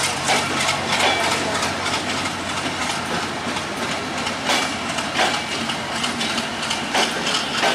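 Broad-gauge passenger coaches of a Bangladesh Railway intercity train rolling past close by: a steady rumble of wheels on rail, with repeated clacks as the wheels cross rail joints.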